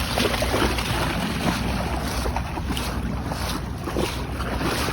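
Wind buffeting the microphone, a steady low rumble, over the splashing and lapping of shallow water.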